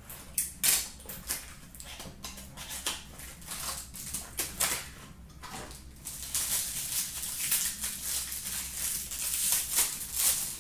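Trading-card packaging being opened by hand: clicks and rustling of cardboard and card packs, then denser crinkling of a pack wrapper being torn and handled from about six seconds in.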